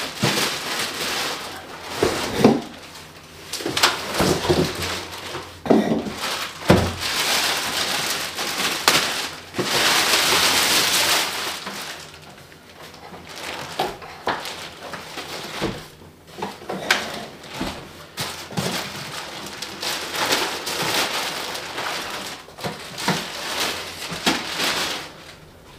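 Clear plastic packaging crinkling and rustling as it is pulled off a boxed portable power station, with a few dull knocks in the first several seconds and a longer, louder rustle near the middle.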